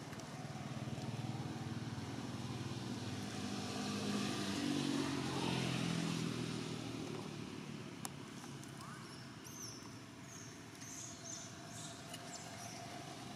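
A motor vehicle's engine passes by. It grows louder to a peak about five seconds in, then drops in pitch and fades away. A few faint high chirps follow near the end.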